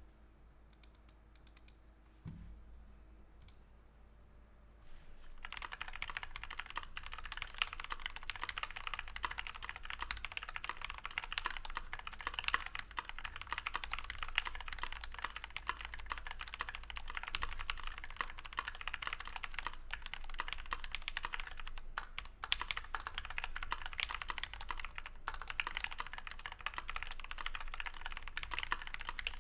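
Typing on a KBD67 MKII mechanical keyboard with lubed Gateron Black Ink linear switches, PBT keycaps and foam in the plate and case. A few isolated key presses come first, then fast, continuous typing starts about five seconds in, with only brief pauses.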